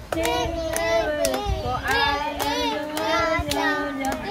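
A child singing a tune in long held notes that glide up and down, with scattered sharp clicks.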